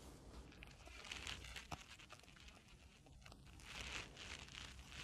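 Faint scraping and crackling of a pry tool being worked under the edge of a phone's screen, against the adhesive that holds it.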